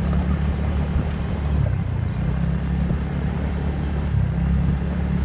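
TVS Ntorq 125 scooter's single-cylinder engine running steadily as it is ridden along a dirt track, a low even drone with little change in speed.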